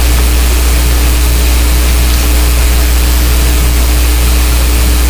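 Loud, steady low hum with a constant hiss over it and a faint steady tone above the hum. It is unchanging background noise from the recording setup, typical of electrical hum in the microphone chain.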